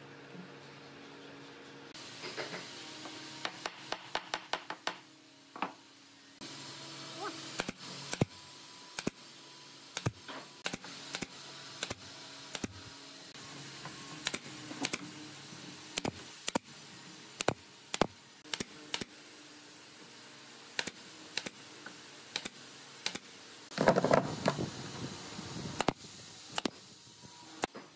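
Pneumatic nail gun firing nails into wooden boards, one sharp snap per shot, roughly once a second with a quick run of shots a few seconds in. A louder noisy burst comes near the end.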